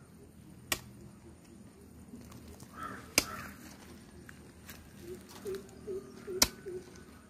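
A hand hoe striking into the soil three times, sharp knocks a few seconds apart. A bird calls in short repeated notes in the background near the end.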